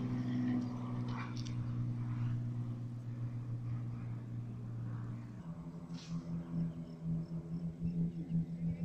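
Propeller aircraft engines droning in flight overhead. About halfway through, the drone changes abruptly to a higher-pitched, pulsing hum, with a single sharp click shortly after.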